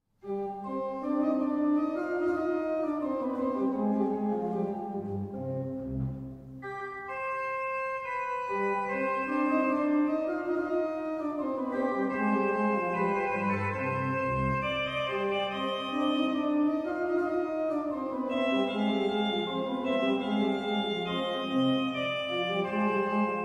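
Flentrop two-manual pipe organ playing a solo melody on a cornet registration on the Positiv (Holpijp 8', Fluit 4', Gemshorn 2', Quintfluit and Terts 1 3/5'), with the bass on the Hauptwerk's Praestant 8' and Octaaf 4'. The playing starts abruptly, with a brief break between phrases about six seconds in.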